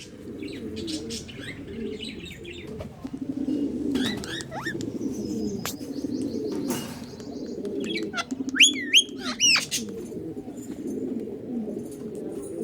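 Birds calling: a low cooing warble that never stops, with sharp, sweeping high calls about four seconds in and a louder cluster of them about two-thirds of the way through.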